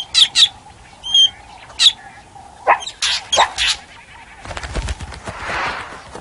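Fork-tailed drongo giving a rapid series of short, sharp alarm calls, a false alarm meant to scare meerkats off their food. About four seconds in, the calls give way to a brief rushing, rustling noise.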